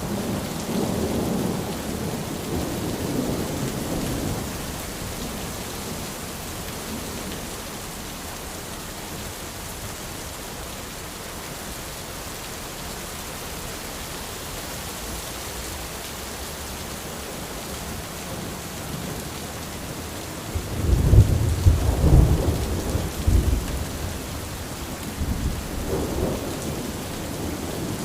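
Steady rain falling on an umbrella, with thunder rumbling: low rolls in the first few seconds, a louder one about three-quarters of the way through, and a shorter one near the end.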